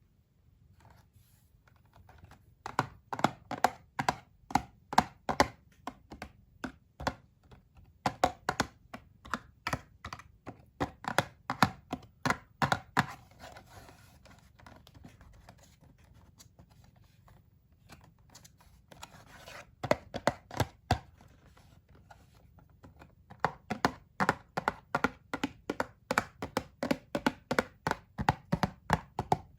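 Hands working on toy packaging: runs of sharp taps and clicks, about three to four a second, lasting several seconds each with short pauses between.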